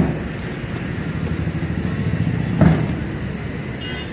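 A nearby motor vehicle engine running with a steady low rumble, with two short thumps, one at the start and one about two and a half seconds in.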